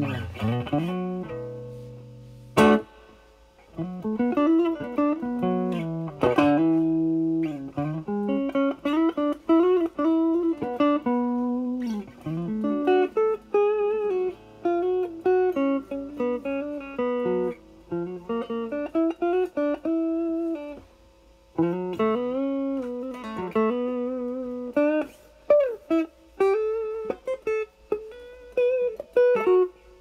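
Stratocaster with single-coil pickups played through a 1986 ProCo RAT2 distortion pedal (LM308N chip), distortion knob at about ten o'clock, into a Marshall Valvestate amp's clean channel. A chord rings out near the start, then single-note lead phrases follow with string bends and vibrato, separated by short pauses.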